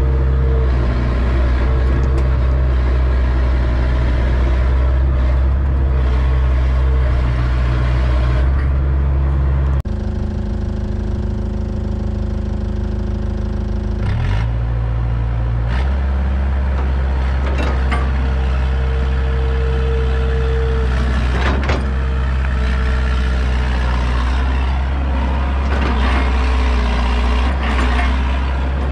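Hitachi tracked excavator's diesel engine running steadily under load while it digs and moves topsoil. The engine note changes abruptly about ten seconds in and shifts again around fifteen seconds, and a few brief knocks come through in the second half.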